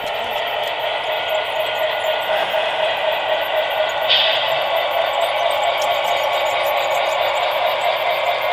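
Model E6 diesel locomotive's onboard sound system playing a steady diesel engine drone through its small speaker as the train pulls along the layout, with a brief hiss about four seconds in.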